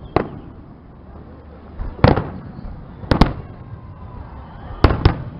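Fireworks display shells bursting: about six sharp bangs, one just after the start, one about two seconds in, a close pair just past three seconds and another close pair near the end, each fading out over a moment.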